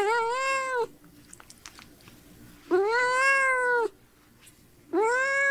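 Cat meowing three times, each meow about a second long and rising then falling in pitch, with short pauses between.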